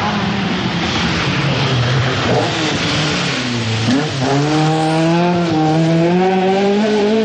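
Rally car engine at full throttle on a special stage, with tyre and road noise; the engine note dips about four seconds in, then climbs steadily as the car accelerates.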